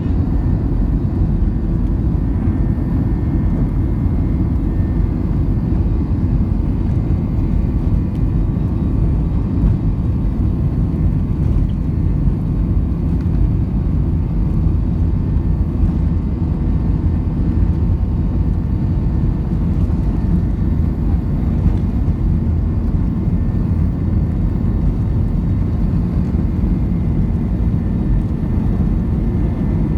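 Steady cabin noise of an Airbus A321: an even, loud rumble of engines and airflow with a faint steady whine above it, heard from inside the cabin.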